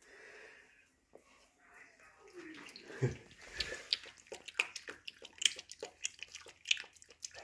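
Patterdale terrier puppy lapping water from a stainless steel bowl: a fast, irregular run of small wet clicks that starts about halfway in.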